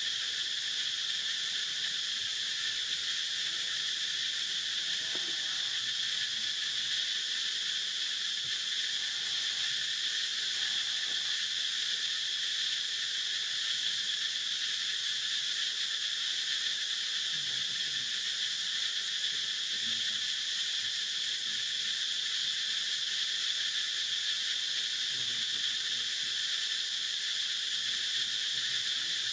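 A steady, unbroken insect chorus: a high-pitched buzzing drone that holds the same level throughout.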